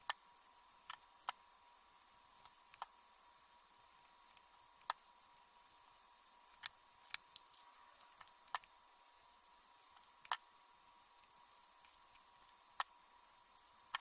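About a dozen scattered, sharp little clicks and taps of crafting work, such as trim, paper and tools being handled on a tabletop, over a faint steady tone.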